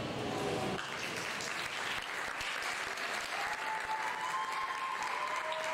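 Grand piano's final chord ringing and dying away, then audience applause starting a little under a second in.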